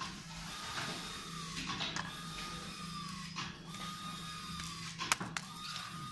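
Clicks and knocks from the plastic housing and LCD screen of a Satlink WS-6980 satellite meter being handled during disassembly, the sharpest about five seconds in. Under them runs a steady hum with a whine that recurs about every second and a half.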